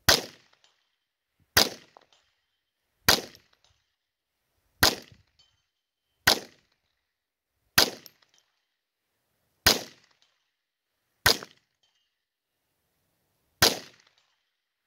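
Marlin .22 LR rifle fired nine times in a steady string: a sharp crack about every one and a half to two seconds, with a longer pause before the last shot.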